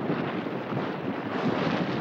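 Wind blowing across an open thermal basin: a steady rushing noise that swells and eases a little.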